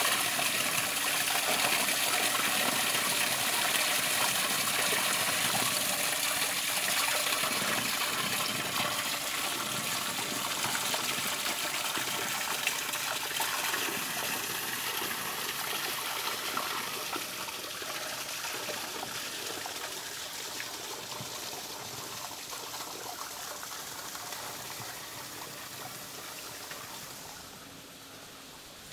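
Spring water pouring from a metal spout onto an iron drain grate, a steady splashing that slowly fades as it grows more distant.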